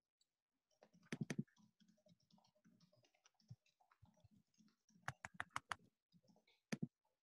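Faint scattered clicks and taps over quiet room tone, with a few together about a second in and a quick run of about six clicks about five seconds in.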